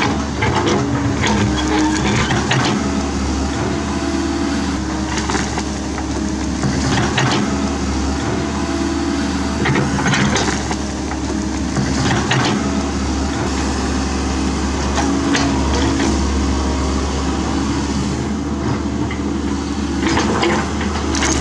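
Komatsu PC130F excavator's diesel engine running steadily under load as its bucket tears a tree stump out of the ground, with short sharp cracks and scrapes of roots and wood about every two to five seconds.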